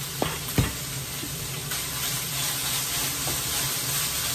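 Corned beef, diced potatoes and onions sizzling steadily in a frying pan as a wooden spatula stirs. Two sharp knocks come within the first second.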